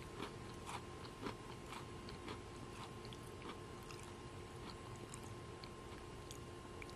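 Close-miked chewing of a crunchy Oreo sandwich cookie, about two faint crunches a second, thinning after about three and a half seconds to a few scattered soft clicks.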